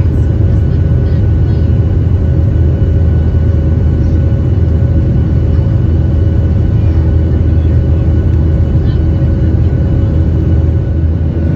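Steady cabin noise of a jet airliner in flight, heard from a window seat: a deep, even rumble of the turbofan engines and airflow, with faint steady whining tones above it.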